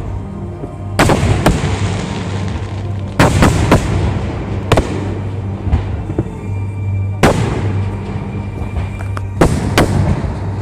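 Fireworks shells bursting overhead: about ten sharp bangs, some in quick pairs and triplets, each trailing off in a short rumble.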